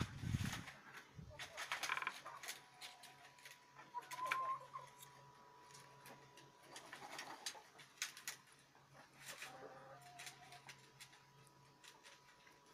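Rabbits rustling and crackling through dry straw, hay and corn stalks, in scattered short clicks loudest in the first couple of seconds. A few short bird calls come in around the middle.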